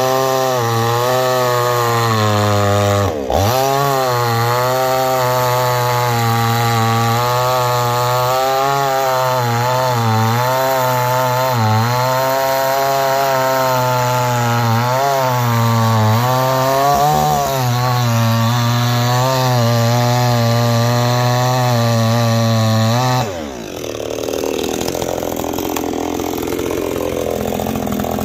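Neo-tec NCS5800 58 cc two-stroke chainsaw running at high throttle while cutting wood, its engine note wavering as the chain loads and frees in the cut, with a brief dip a few seconds in. Near the end the engine note drops away, leaving a quieter, rougher noise.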